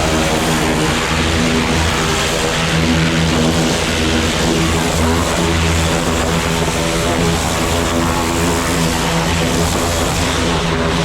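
An engine running steadily at constant speed, with a strong hiss over it.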